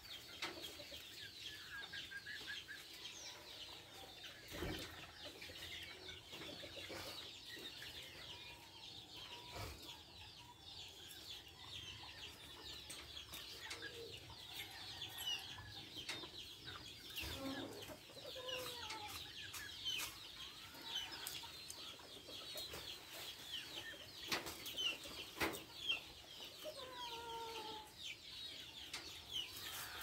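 A small flock of Japanese Hagoromo budgerigars chattering in a continuous stream of quick, high chirps and warbles, fairly faint, with a few louder calls in the last few seconds.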